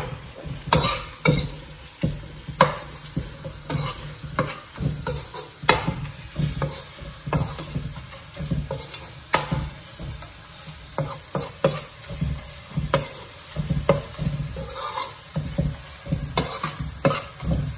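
A metal slotted spoon stirs and scrapes onions fried with spice powders in a non-stick wok, with the food sizzling. The spoon knocks and scrapes against the pan in irregular strokes.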